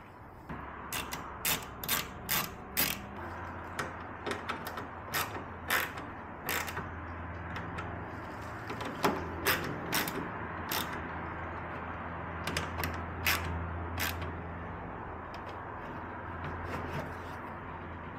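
Small bolts being driven by hand into the rivet nuts that hold a lightweight door panel to a BMW E36 door: irregular runs of sharp metallic clicks from the hand tool, over a low steady hum.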